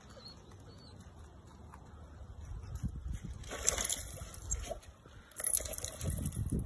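A large dog splashing in shallow water, slapping and sloshing at the surface with its head, with two bigger splashes about three and a half and five and a half seconds in.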